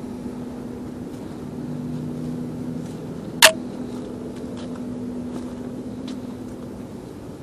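A steady low mechanical hum, with one loud, sharp click about three and a half seconds in and a few faint ticks.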